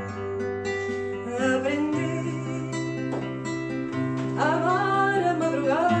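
Acoustic guitar picking with a voice singing a melody over it, the sung phrases coming twice.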